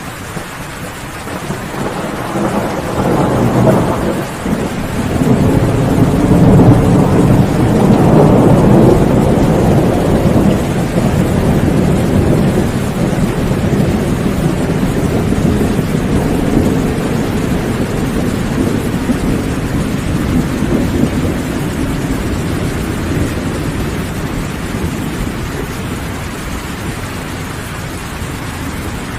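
Steady rain with a long rolling thunderclap that builds from a couple of seconds in, is loudest around a third of the way through, and slowly rumbles away.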